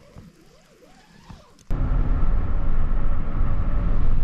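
A quiet, faint stretch, then an abrupt cut about one and a half seconds in to a loud, steady low rumble.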